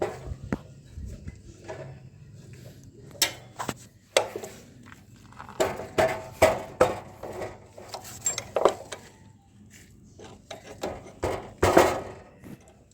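Tools and metal parts of a motorcycle's rear wheel and drum brake clinking and knocking in short irregular taps during reassembly, the loudest clank near the end.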